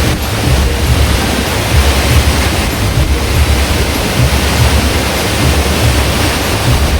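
Loud, steady rush of a large waterfall, with a heavy low rumble underneath.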